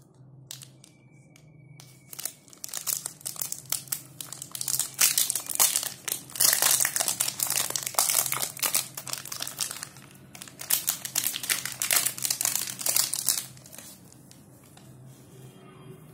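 A Cadbury Dairy Milk Crispello bar's plastic wrapper crinkling as it is torn open and unwrapped by hand. The crackling starts about two seconds in, is densest through the middle and thins out near the end.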